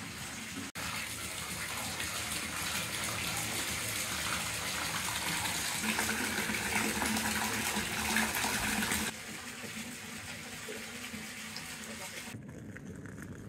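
Hot spring water pouring steadily from a wooden spout into a round bath tub, a constant splashing gush. About nine seconds in it turns quieter.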